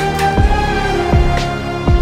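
Background music: steady held notes with deep booming hits that drop in pitch, three of them at an even pace.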